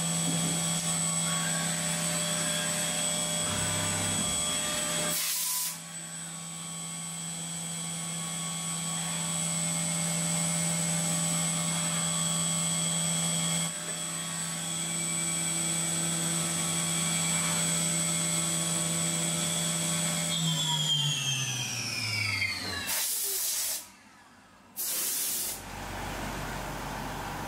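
CNC mill spindle running at steady speed with a high whine, a low hum and the hiss of coolant mist, while a 3 mm end mill bores holes in aluminium plate. About 20 seconds in, the spindle winds down, its pitch falling. After a short break comes a lower, duller running noise near the end.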